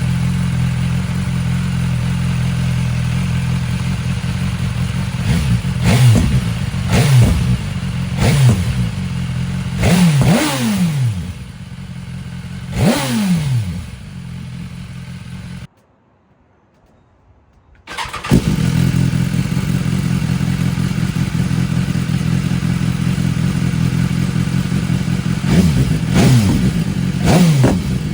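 BMW S 1000R inline-four engine idling with a steady burble, blipped several times into quick revs that climb and fall back. The same is then heard a second time after a short break: first through the stock Akrapovic exhaust, then through a Mivv Mk3 slip-on. The owner finds the Mivv deeper and angrier in tone, at about the same volume as stock.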